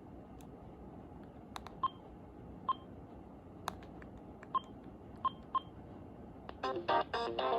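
Keypad of an AT&T E580-2 cordless phone handset: key clicks and about five short, high key-press beeps as its menus are stepped through. Near the end a polyphonic ringtone tune starts playing from the handset.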